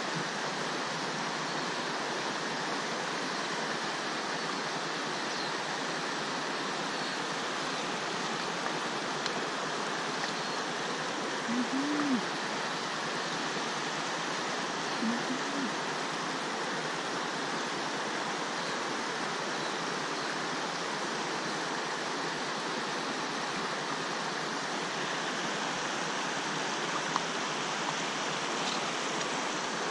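River water flowing steadily, a constant rush of noise, with two short low hums near the middle.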